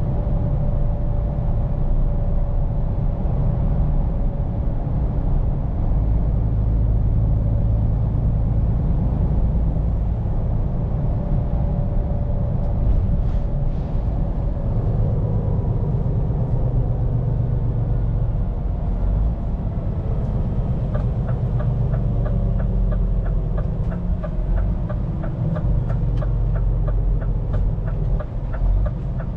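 Scania P410 truck's six-cylinder diesel engine and road noise in the cab, a steady low drone while driving. About two-thirds of the way in, an even ticking starts and keeps going: the turn-signal indicator.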